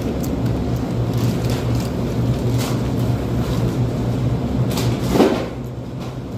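Steady low mechanical hum, with a few light clicks and one short, louder scrape about five seconds in.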